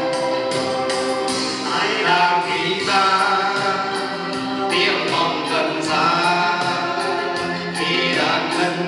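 Several men singing a Vietnamese song together through microphones, accompanied by an acoustic guitar, over a steady beat.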